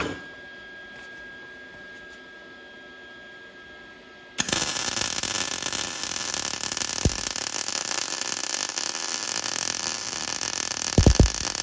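A faint steady hum, then about four seconds in a MIG welding arc strikes and keeps going with a dense, steady crackling sizzle as it lays weld on the steel M49/57 receiver tube, fed with 0.025-inch wire.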